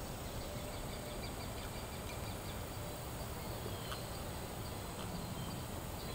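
Outdoor yard ambience: a steady low background rumble with faint, short, high chirps, including a brief falling chirp about four seconds in.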